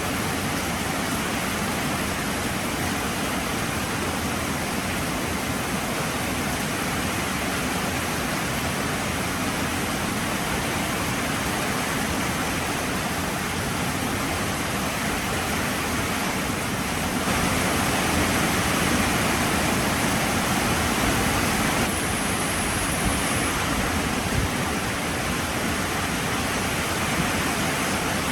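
Heavy rain falling steadily, a dense even hiss of downpour that swells louder for about five seconds a little past the middle.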